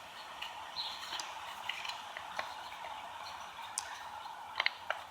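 Faint scattered ticks and small clicks of the device's freed dial parts being handled, with a few sharper clicks near the end.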